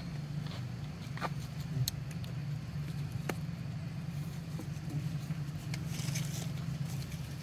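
A steady low motor drone, with a few faint clicks over it.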